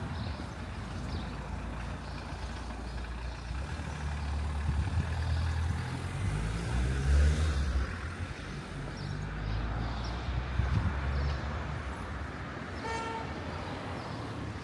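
Low rumble of a motor vehicle passing on a town street, swelling in the middle and fading again, with a brief toot-like tone near the end.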